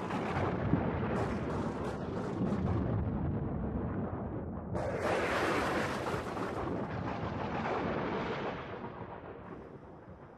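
A heavy, low rumble. About five seconds in a hissing surge rises over it, and both die away near the end.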